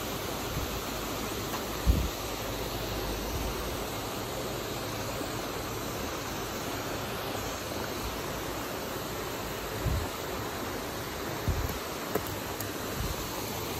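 Steady rushing of water pouring through a spillway, with a few dull low thumps.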